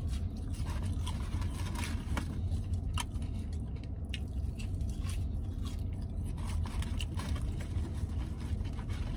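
Close-up chewing and biting of sweet potato fries, with small scattered mouth clicks and crackles, over a steady low hum inside a vehicle cabin.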